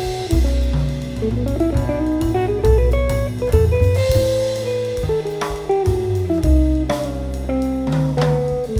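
Studio jazz recording: a guitar plays a melodic line of single notes over acoustic bass and a drum kit with cymbal strokes.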